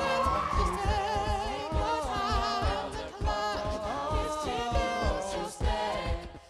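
A cappella group singing a pop arrangement live through microphones: a male lead vocal over sung backing harmonies, with vocal percussion keeping a steady beat of low thumps.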